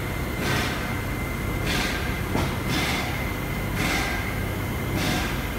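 Steady low hum of workshop machinery, with a thin steady whine and a regular swishing surge about once a second.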